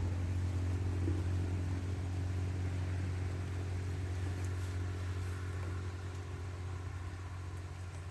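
Low rumble of thunder rolling on and slowly fading, with rain falling.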